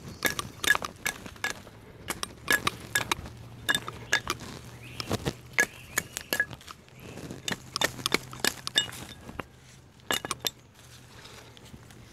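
A knife blade cutting into a green wooden stick in quick short strokes as it is whittled: a run of sharp clicks and light metallic clinks, with a short pause near the end.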